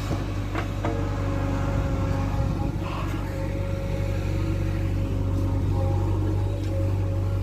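Heavy diesel engine running at a steady, even speed, with a deep hum and a couple of faint clicks about a second in.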